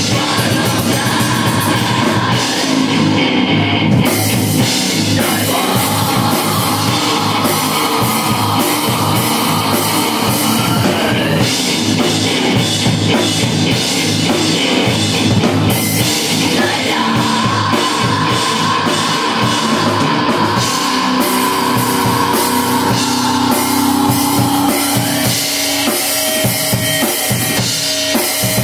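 Loud heavy rock music with a drum kit driving the beat.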